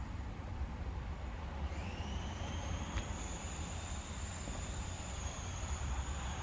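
Steady low outdoor rumble, with an insect's steady high-pitched buzz starting about two seconds in and carrying on.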